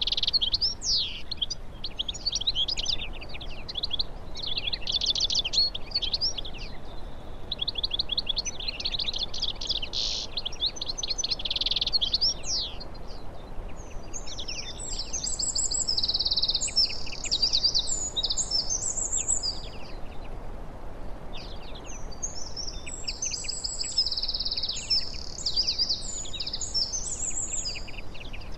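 Small songbirds singing fast, high twittering trills. They come in quick bursts through the first half and as denser, jumbled phrases from about halfway on, over a faint steady background hiss.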